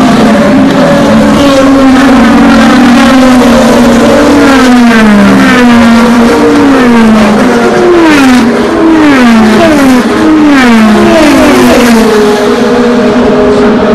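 IndyCar open-wheel race cars with twin-turbo V6 engines at full throttle, passing in quick succession. Each engine note drops in pitch as the car goes by, with a fresh pass about once a second through the middle of the stretch, all very loud.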